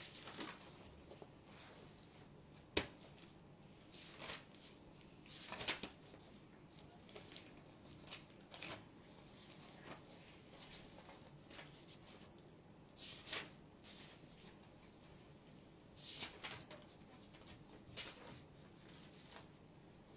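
Crinkling and rustling of plastic packaging being handled, in short irregular bursts every second or two, with one sharp click about three seconds in.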